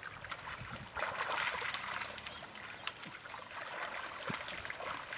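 Shallow, muddy pond water splashing and trickling as people wade and grope in it for fish, with many small scattered splashes and drips.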